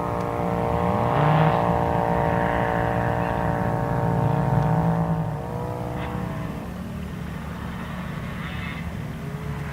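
Engines of off-road side-by-sides running and revving on the sand dunes, the pitch rising and falling with the throttle. The sound drops in level about halfway through.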